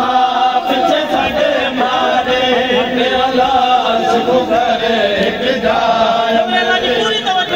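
A group of men chanting a noha, a Shia mourning lament, together. It is a loud, continuous sung chant with drawn-out notes.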